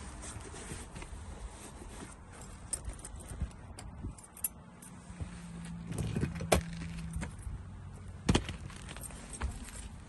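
Scattered light clicks and rattles with a few sharp knocks, the loudest about six and a half seconds in and another just after eight seconds; a brief low hum sounds in the middle.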